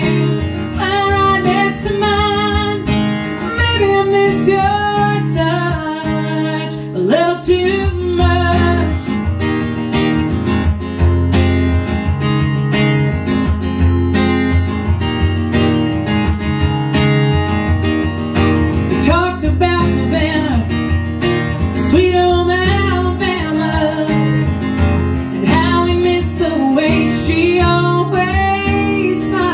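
Live country song: a woman singing to her own strummed acoustic guitar, with the voice dropping back for a stretch in the middle while the guitar carries on.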